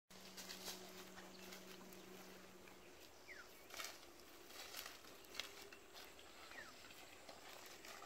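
Near silence: faint rural outdoor ambience, with a few soft crunches and two brief, faint falling chirps.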